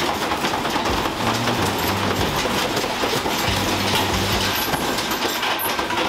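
Indesit washing machine running, its drum and body clattering and rattling hard as the whole machine shakes and swings, with a low hum that comes and goes.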